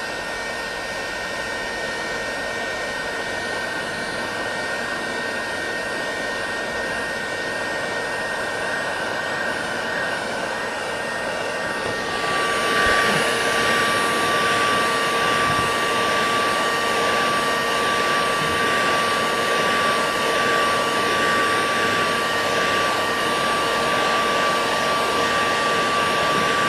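Electric heat gun running steadily, a blowing rush with a thin fan whine, as its hot air shrinks a PET bottle onto a wooden form. It gets louder about halfway through.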